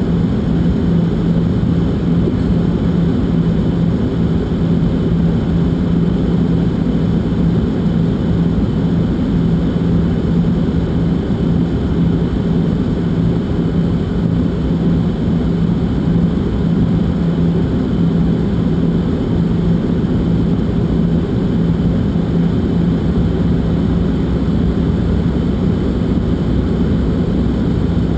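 Jet airliner cabin noise on approach: a steady rumble of engines and airflow with a constant low drone, unchanging throughout.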